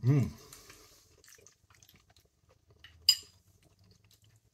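A short hummed voice sound right at the start, then one sharp clink of a metal fork against a ceramic bowl about three seconds in, with a brief high ring.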